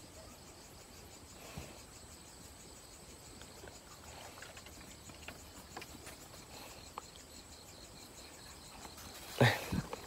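Faint, steady cricket chirping with a few soft clicks and rustles of hands working in dry grass, and a short louder sound near the end.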